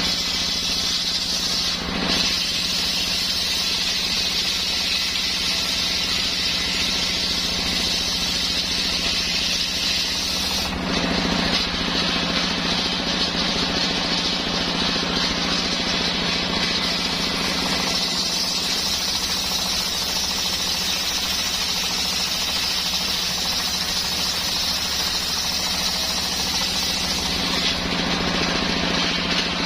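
Homemade engine-driven circular saw rig running steadily while sawing coconut wood, a constant pulsing engine drone under the hiss of the blade, shifting slightly a few times.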